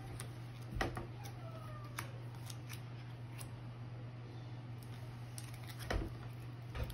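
Foil trading cards being handled, sorted and laid down on a tabletop mat: a few sharp clicks and light taps as cards are picked up and set down, loudest about a second in and again near the end, over a steady low hum.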